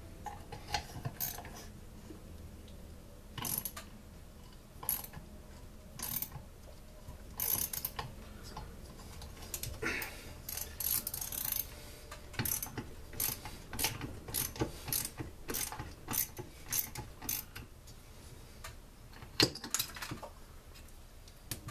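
Hand ratchet wrench clicking in short, irregular bursts while screws are backed out of a Stihl SR 420 blower's two-stroke engine during teardown, with metal parts clinking on the bench.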